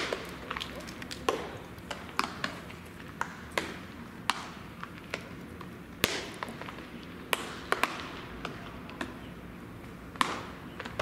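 Baseballs smacking into leather gloves during catch practice: sharp pops at irregular intervals, roughly one or two a second, some loud and close and others fainter.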